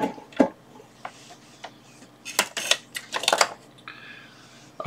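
Handling clatter on a workbench: irregular sharp clicks and knocks as a benchtop heating plate is shifted and a plug-in power meter and its cable are set down, with a quick run of knocks in the middle.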